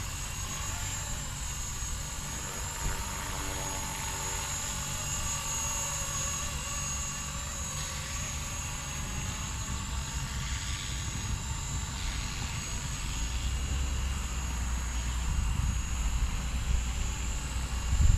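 Blade 230S electric RC helicopter hovering and manoeuvring: a steady high whine from its brushless motors and rotors, with thinner tones that waver in pitch as the pilot corrects. A low rumble builds in the second half, and there is a short knock near the end.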